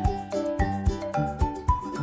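Background music with a quick, steady beat and a bright pitched melody over it.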